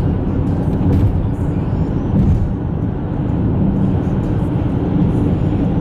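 Steady low engine and road noise heard from inside a moving car's cabin.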